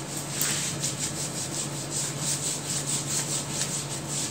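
A duster rubbed quickly back and forth across a whiteboard, wiping off marker writing in an even run of swishing strokes, about three to four a second.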